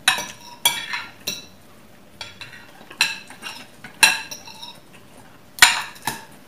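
Metal spoons and forks clinking against ceramic dinner plates while eating: about seven sharp clinks at uneven intervals, the loudest about four seconds in and about five and a half seconds in.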